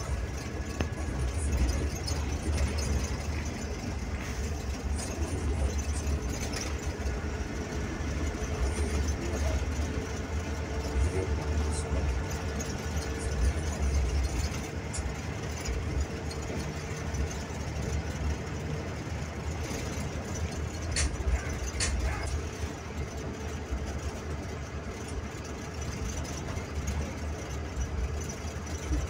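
A bus engine drones steadily while the bus is under way, heard from inside the driver's cabin along with road noise. A few sharp clicks come about halfway through and again about two-thirds of the way in.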